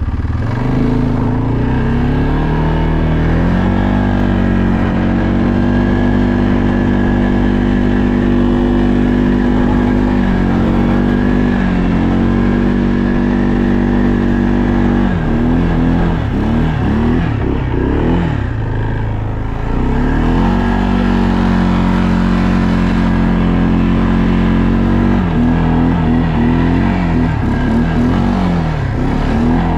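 ATV engine running close by as it is ridden, revs climbing over the first few seconds and then holding fairly steady. Throttle goes on and off in the middle and again near the end, so the pitch dips and wavers before steadying.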